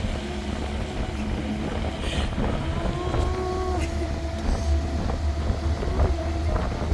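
Steady low rumble with a few faint clicks, and a brief faint tone about three seconds in.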